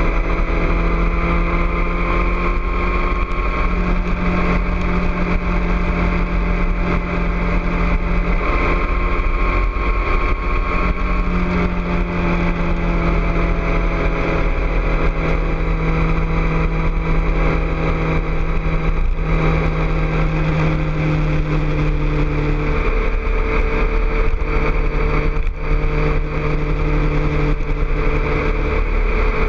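2006 Suzuki GSX-R600's inline-four engine with a Two Brothers aftermarket exhaust running at cruising speed, heard from a camera on the bike, with heavy wind rush. The engine note steps to a new pitch a few times as the throttle and gears change.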